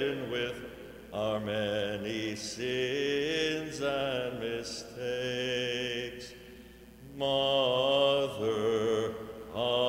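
Byzantine chant: a voice sings a slow, ornamented melody with long held notes that bend and waver, pausing briefly about a second in and for about a second two-thirds of the way through.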